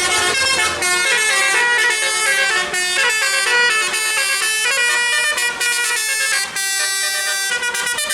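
Bus 'telolet' musical air horn playing a fast melody of short notes stepping up and down in pitch. A low engine rumble underneath fades out about a second in.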